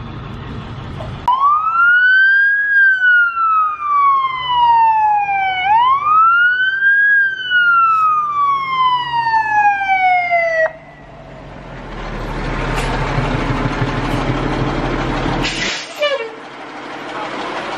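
Emergency vehicle siren wailing in two slow cycles, each a quick rise in pitch and a long fall, then cutting off suddenly. A large vehicle's engine rumbles after it, with a short hiss near the end.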